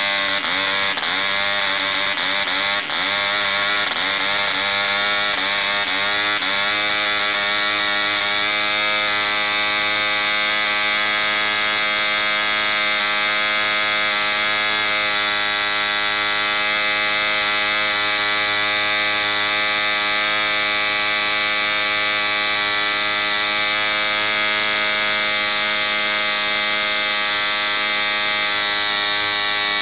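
ED 3.46 Hunter two-stroke model diesel engine running on a test stand, swinging an 11x6 wooden propeller at about 6000 rpm. For the first several seconds its note wavers and hunts as the compression is adjusted, then it settles into a steady, even run.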